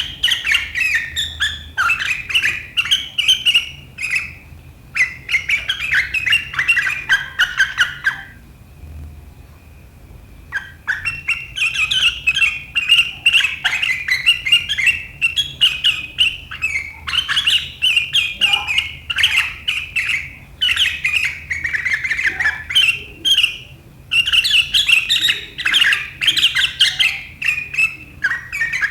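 Sooty-headed bulbul (kutilang) singing in sharp, rapid chattering runs, the 'riwikan' style of a bird in full song, with a pause of about two seconds roughly a third of the way in.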